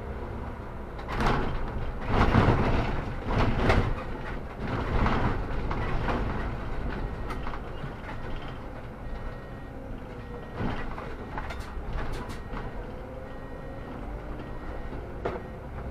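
Solaris Urbino 18 articulated city bus under way: a steady low rumble with loud rattles and knocks, clustered between about one and five seconds in and again around ten to twelve seconds in, over a faint whine that dips and rises.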